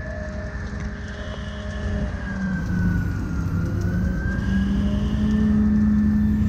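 Fire engine's engine and pump running with a steady low hum and a high whine, revving up about two seconds in as the pump feeds the foam hose line.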